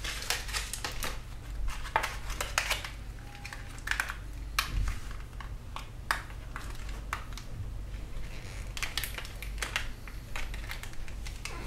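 Thin PET plastic from a cut 2-liter soda bottle crinkling and crackling in irregular clicks as it is folded in half and creased flat by hand against a tabletop, over a steady low hum.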